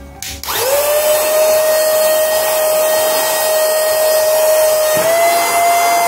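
LT-117 handheld cordless vacuum cleaner switched on about half a second in, its small motor spinning up quickly to a loud steady whine over rushing air. About five seconds in the whine steps up slightly in pitch.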